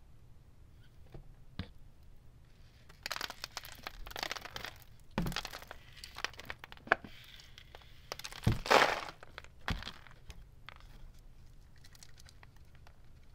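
Dust, lint and confetti bits rustling and crackling as they are shaken out of a clear plastic vacuum dust bin into a cardboard box. The noise comes in two main bursts, with a few knocks as the plastic bin is handled.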